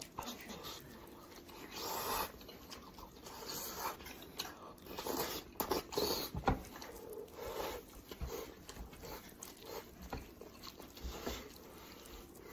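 Close-up eating sounds of a person chewing and biting roasted pork head: irregular wet mouth clicks and smacks, some louder bites near the middle.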